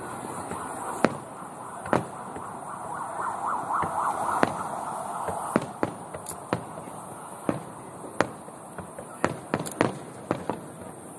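Aerial fireworks bursting one after another with sharp bangs. A wavering whistle rises above the background from about two to five seconds in, and the bangs come in a quick run near the end.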